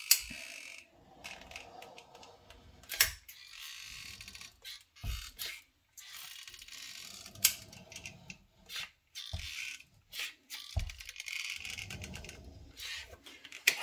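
A Loctite Power Grab Heavy Duty construction adhesive dispenser being squeezed by hand. It gives a few sharp mechanical clicks, several seconds apart, with stretches of hissing between them as a bead of adhesive is pushed out.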